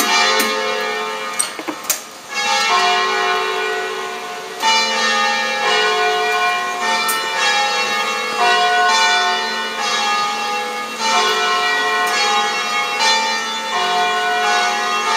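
Church bells ringing, several bells struck one after another so that their long ringing tones overlap, with a new run of strokes every couple of seconds. A few sharp clicks sound in the first two seconds.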